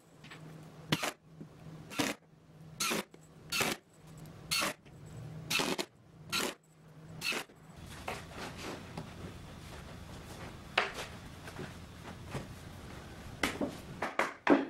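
Cordless drill driving screws into a plywood bench top: about eight short rasping bursts, roughly one a second, then a few light knocks and scrapes.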